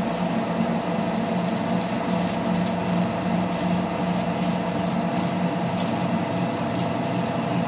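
Metal lathe turning slowly at 160 rpm while a large twist drill, power-fed from the carriage, bores into a 6082 aluminium bar: a steady machine hum with frequent light, irregular ticking as long spiral chips curl off the drill.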